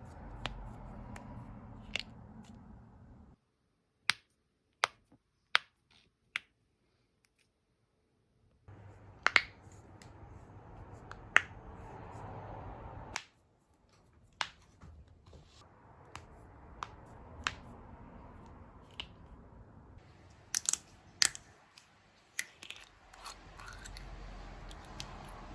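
Human joints being cracked: a series of sharp single pops at irregular intervals, some coming two or three close together, over a faint hiss that drops out in places.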